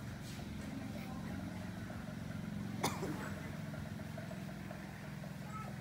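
A steady low motor hum, with one sharp click or snap about three seconds in.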